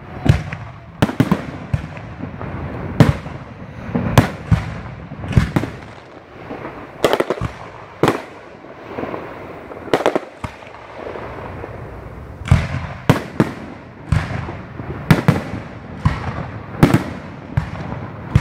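Aerial fireworks bursting in quick succession: sharp bangs, often several a second, with a crackling hiss between them and a short lull about two-thirds of the way through.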